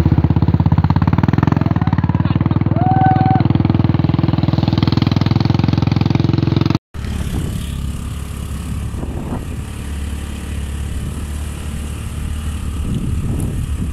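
Small scooter engine running steadily under way on a rough dirt track, with a fast even beat. The sound cuts off abruptly about seven seconds in and resumes quieter and rougher.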